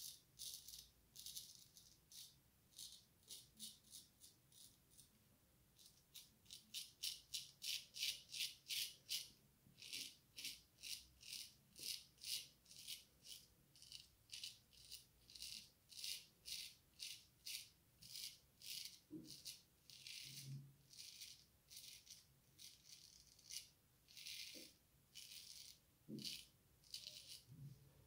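Antoine Touzet frameback straight razor, about 1900, with a Swedish steel blade, scraping through lathered stubble. It goes in runs of quick short strokes, about three or four a second, with brief pauses between runs.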